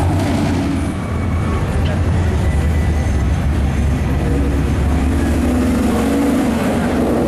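Muscle cars driving past one after another, their engines and exhausts giving a steady, loud low drone.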